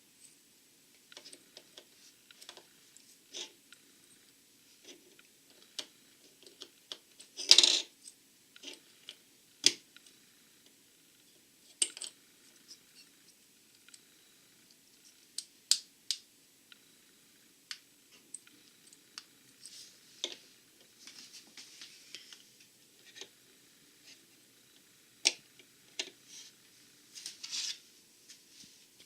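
Plastic Lego bricks clicking and clattering as pieces are picked out and snapped together: scattered sharp clicks, with a louder clatter about seven seconds in and softer rummaging later on.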